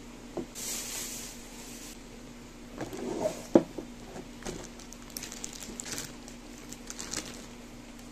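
Clear plastic bag of dry pellet food being handled: crinkling and crackly rustles with the pellets shifting, a sharp knock about three and a half seconds in, and a run of small crackles in the second half.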